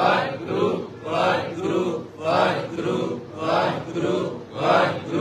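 A man's voice chanting in a steady rhythm, a short phrase repeated about every half second or so.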